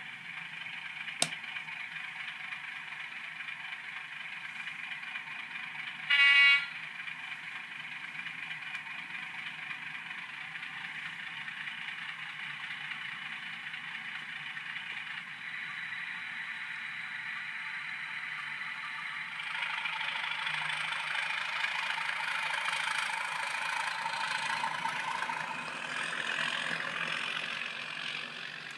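Hornby Class 31 model locomotive's DCC sound decoder playing a Class 31 diesel engine idling through the model's small onboard speaker, with a sharp click about a second in and one short horn blast about six seconds in. About 19 seconds in the engine sound rises as the locomotive powers up and pulls away, fading near the end.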